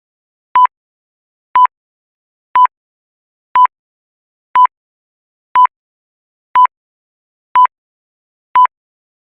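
Short electronic beeps at one steady pitch, one each second, nine in all, with silence between them.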